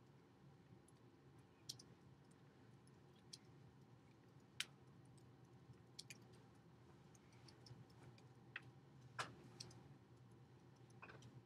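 Near silence: room tone with a low steady hum and scattered, irregular sharp clicks and taps.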